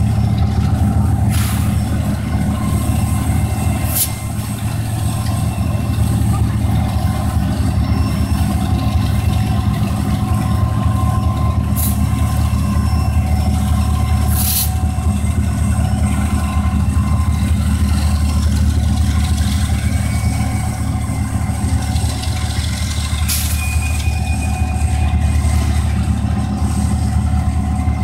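Union Pacific diesel locomotives' engines running under load as the train pulls slowly away, a steady low drone, with a few brief sharp clicks from the rolling train.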